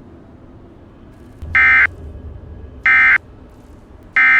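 Emergency Alert System end-of-message signal: three short, identical bursts of digital data tones, about a second and a half in and then roughly every 1.3 seconds, marking the close of the alert.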